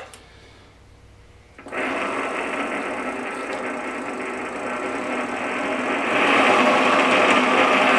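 A click, then about a second and a half later the Vevor MX-S716G mini lathe's motor and spindle start up and run with a steady mechanical whir. It gets louder about six seconds in as the speed knob is turned up.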